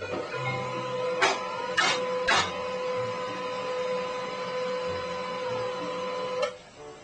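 A small machine running with a steady whirring hum, with three sharp clicks between one and two and a half seconds in; the hum stops shortly before the end.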